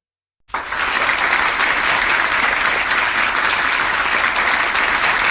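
Applause: many hands clapping in a dense, steady patter that starts abruptly about half a second in.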